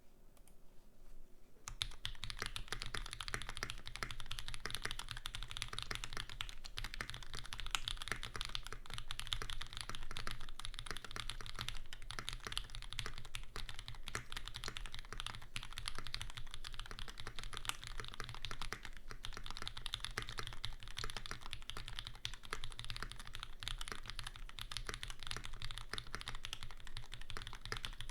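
Continuous fast typing on a QK65 V2 65% custom mechanical keyboard with lubed SP Star Meteor Orange switches, an aluminium plate and GMK Vaporwave R2 keycaps: a dense run of keystroke clacks that starts a couple of seconds in.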